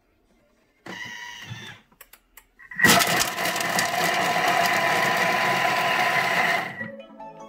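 Thermomix TM6 blade spinning at speed 5, chopping ingredients in the mixing bowl for about four seconds, starting about three seconds in and stopping abruptly.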